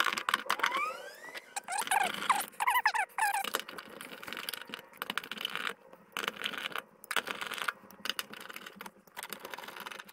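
Hand work on a car's fuel pump top plate and its plastic wiring connector: a run of high, wavering squeaks in the first few seconds, then scattered clicks, taps and scrapes.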